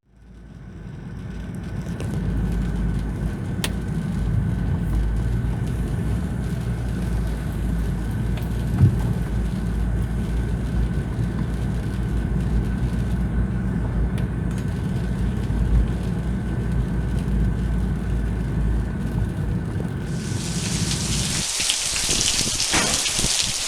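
Storm noise: a deep, steady rumble of strong wind buffeting the microphone, with a faint steady high tone over it. About twenty seconds in it changes abruptly to the hiss of heavy rain pouring down.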